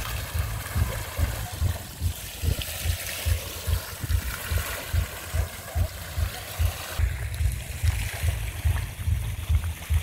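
Small fountain's jets splashing and trickling into a stone-lined pool, over a low rumble that pulses irregularly several times a second.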